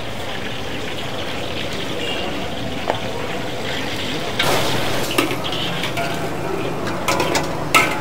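A coconut-milk sauce sizzling in a wok while it is stirred, with a louder stretch of stirring about halfway through and a few sharp clanks of a metal utensil near the end.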